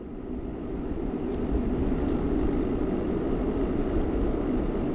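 Wind rushing over the microphone while riding a bicycle: a steady, rumbling rush with no clear tones.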